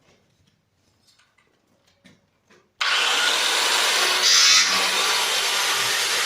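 A few faint taps, then a power tool starts abruptly about three seconds in and runs loud and steady, with a couple of brief higher-pitched surges as it bites.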